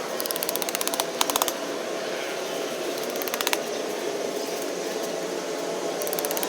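Four short runs of rapid mechanical clicking, ratchet-like, over a steady background hiss.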